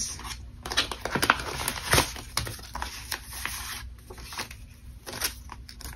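Paper banknotes and a plastic cash-binder pocket rustling and crinkling as bills are slid into the pocket, with scattered sharp clicks and taps. The loudest clicks come about a second and two seconds in.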